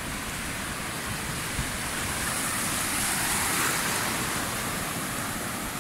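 Surf breaking on a rocky reef flat, with foamy sea water washing over the rocks: a steady rushing noise that swells a little in the middle.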